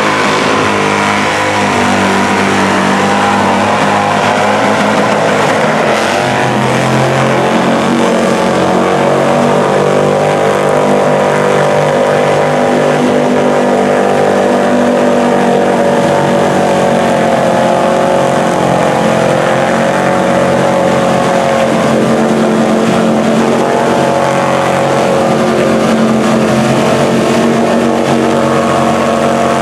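Big mud bog truck engine held at high revs, running hard and steady, its pitch wavering a little as it pulls through deep mud.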